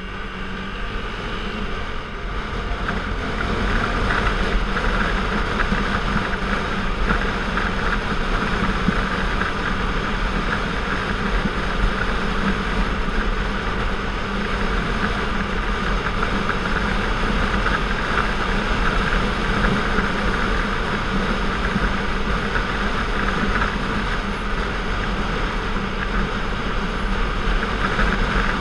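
Sport motorcycle engine running while riding, with steady wind and road noise. The engine note rises and grows louder over the first few seconds as the bike speeds up, then holds steady.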